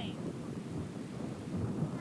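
Low, uneven rumbling noise of outdoor wind buffeting a camcorder microphone.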